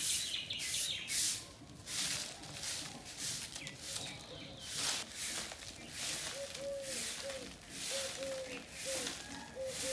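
Short straw hand broom sweeping a bare dirt yard: quick swishing strokes about every half second to second. Birds chirp near the start, and a low call repeats in the second half.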